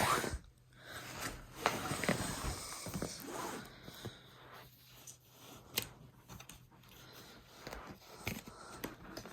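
Cardboard box lid being lifted and slid off a boxed computer, giving irregular scraping and rustling with a few light clicks and knocks.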